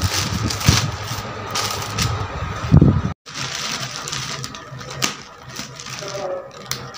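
Plastic courier mailer bag crinkling and rustling as it is handled. After a sudden break about three seconds in, there is quieter rustling and scratching with a few clicks as the plastic is worked open.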